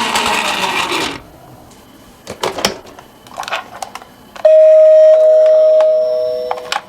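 Toy minicars rolling down a plastic slope, a rushing rattle that stops about a second in, followed by a few light clicks. Then a toy's electronic sound chip gives a loud, steady beep lasting a couple of seconds, with a second, lower tone joining it partway through.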